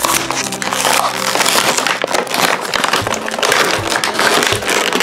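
Clear plastic packaging being pulled and torn open by hand: a loud, continuous crinkling and crackling of thin plastic film.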